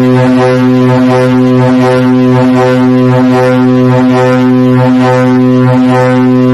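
Ship's horn sounding one long, steady, deep blast, part of the ships' horn salute that greets the New Year in the harbour.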